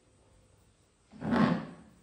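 A stack of stainless steel plates clattering once as they are picked up and handled, a little over a second in.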